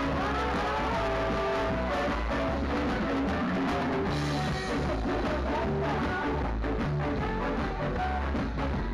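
A live rock band playing: electric guitar, bass guitar and drum kit with a saxophone, and held melody notes over a steady bass line.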